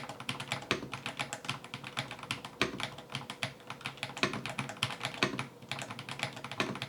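Typing on an Ajazz AK820 Pro mechanical keyboard: a rapid, uneven run of sharp key clicks, several a second, as the keys are pressed and bottom out.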